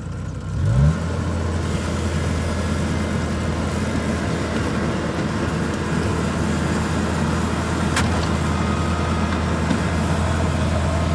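Kubota DC70 combine harvester's diesel engine revving up quickly about a second in, then running steadily. A single sharp click near the end.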